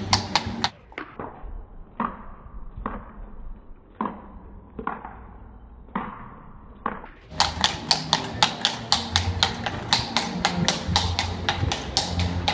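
Horse's hooves clip-clopping on cobblestones as a horse-drawn carriage goes by: quick, regular clops, softening to sparse single knocks for several seconds after the first second, then coming back quick and loud about seven seconds in.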